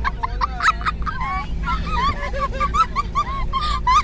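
Several people laughing hard in high-pitched, quickly repeated squeals inside a moving vehicle's cabin, over the low, steady rumble of the engine and road.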